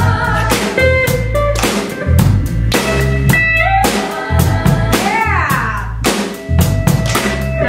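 Live rock band playing an instrumental passage: a drum kit keeping a steady beat with bass drum and rimshots under electric bass and electric guitar, with a note that slides downward about five seconds in.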